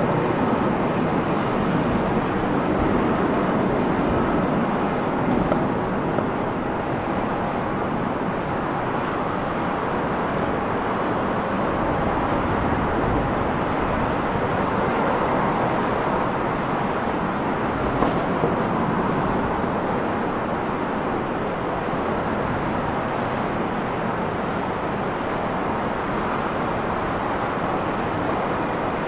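Steady rushing jet engine noise from airliners at the airport, a little louder in the first few seconds as a climbing Airbus A320 departs, then holding level.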